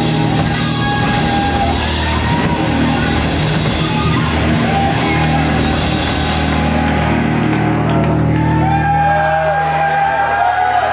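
Live hard rock band playing loud in a hall: electric guitars, bass and drums with shouted singing. Near the end the bass and drums drop away and the song winds down into crowd shouts.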